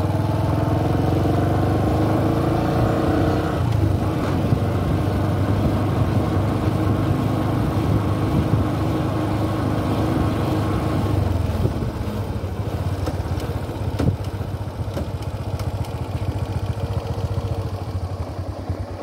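Motorcycle engine running while riding, heard from the rider's seat with wind and road noise. Its note changes about four seconds in, and past the middle it quietens as the bike slows down, with a single sharp click a little later.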